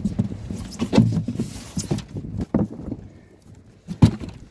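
Fish and crushed ice being shifted by hand in a boat's fish hold: irregular knocks, thumps and rustling, with one sharp thump about four seconds in.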